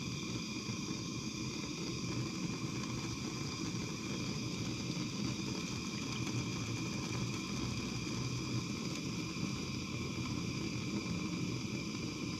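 Handheld MAP gas blowtorch burning with a steady hiss, its flame heating a copper tee to solder the joint.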